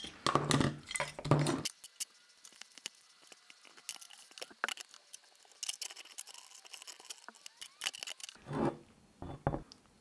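Brake caliper parts being handled on a workbench: sharp metal clicks and taps as a slide pin is worked into the caliper carrier bracket, with rustling and rubbing of gloved hands near the start and again near the end.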